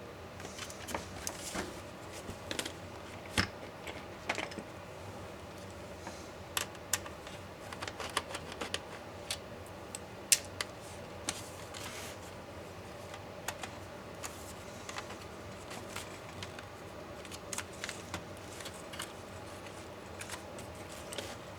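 Irregular light clicks and taps of small laptop parts and tools being handled during disassembly, with a sharper click about ten seconds in, over a steady faint hum.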